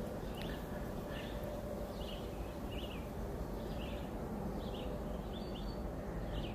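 A songbird in woodland repeating short chirping notes, roughly one to two a second, over a steady low background rumble.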